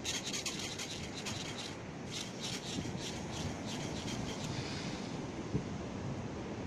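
Steady rushing and rubbing noise on the microphone from wind and a hand-held phone, with irregular short scratchy rustles.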